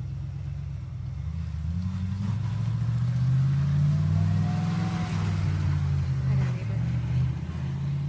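A motor vehicle driving past, its low engine hum growing louder to a peak about halfway through, then fading away.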